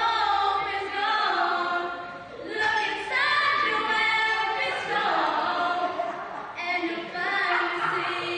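A group of young women singing a song together, unaccompanied, in phrases broken by short pauses about two seconds in and again near seven seconds.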